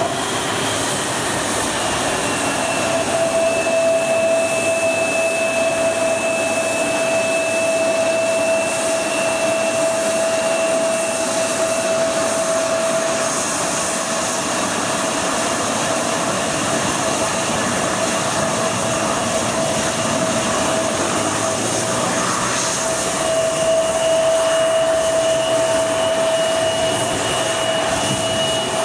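Bombardier CRJ-700 taxiing, its two rear-mounted GE CF34 turbofans running at taxi power with a steady rush and a high, steady whine. The whine fades in the middle and returns strongly about two-thirds of the way in, as the jet turns.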